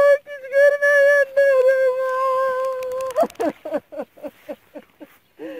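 A woman's voice singing unaccompanied: long held notes, then about three seconds in a run of short, quick syllables.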